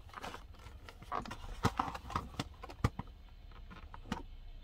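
Plastic blister card of a diecast car being handled and turned over in the hand: a few sharp clicks and taps of the plastic bubble and cardboard, with light rustling.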